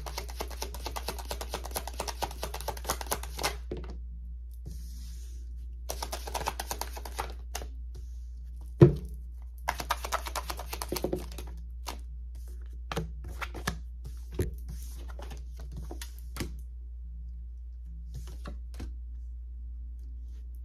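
A deck of tarot cards being shuffled by hand: three runs of rapid card clicking a few seconds each, then scattered single card snaps. One sharp knock about nine seconds in is the loudest sound, over a steady low hum.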